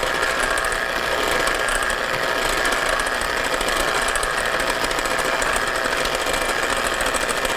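Electric hand mixer running steadily, its beaters churning through egg yolks and sugar in a glass bowl.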